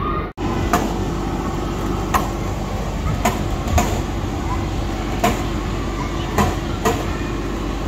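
Air-powered ball cannon at a play frame: a steady rush of the blower with about eight sharp, irregular knocks of plastic ball-pit balls being fed in and shot through the pipe.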